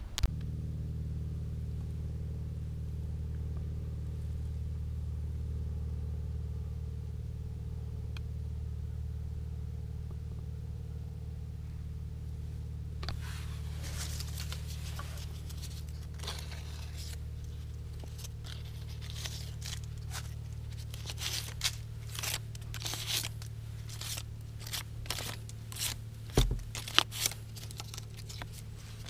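Car engine idling with a steady low hum. From about halfway on, close rustling, crinkling and clicking handling noises come over it.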